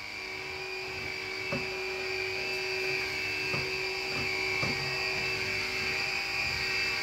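Cordless stick vacuum running with a steady high-pitched motor whine, its nozzle pushed across the floor, with a few faint knocks.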